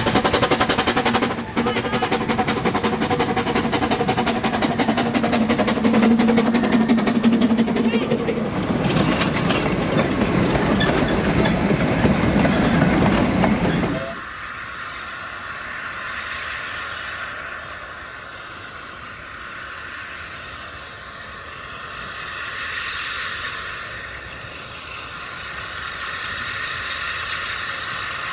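Narrow-gauge steam locomotive and its train running past close by, loud with fast rhythmic clatter. About fourteen seconds in the sound drops suddenly to a much quieter, thin background.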